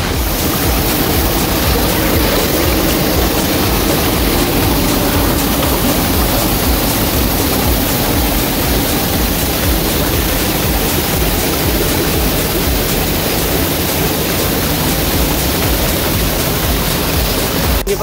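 River water rushing between large moss-covered stepping stones close to the microphone, a loud, steady, unbroken rush.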